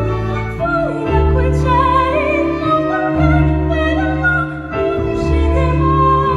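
A high voice sings sustained notes with vibrato over a theatre orchestra, in the style of a musical sung operatically, and the low accompaniment drops out briefly twice.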